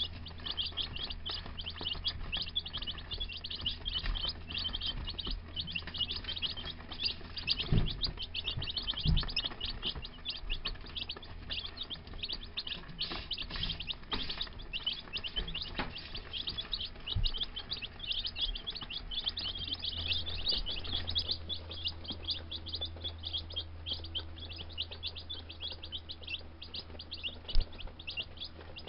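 A brood of baby chicks (Gold Star, Rhode Island Red and Buff Orpington) peeping without pause, a dense chorus of short high peeps. A steady low hum runs underneath, with a few soft knocks and one sharper knock near the end.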